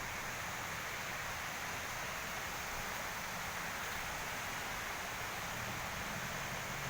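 Steady rushing water noise of a waterfall, even and unbroken.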